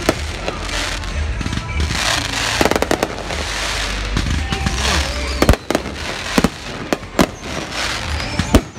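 Fireworks bursting overhead: dense crackling and a quick run of sharp bangs, then several louder single bangs spaced about a second apart in the second half.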